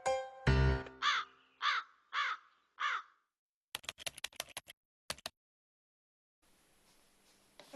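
A carrion crow calling: four short caws about half a second apart, followed by a quick run of sharp clicks. The first moment holds the end of a music sting.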